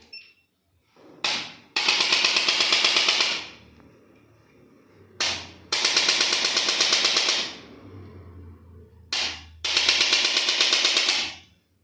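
Handheld electric percussion tool used on the body during a chiropractic treatment, firing three bursts of rapid strikes at about ten a second, each burst about a second and a half long and led by a brief short burst.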